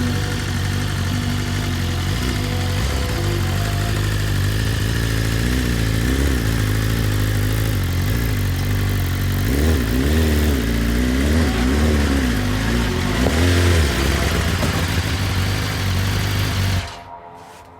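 Motorcycle engine running, revved in several short rises and falls midway, then cutting off suddenly near the end.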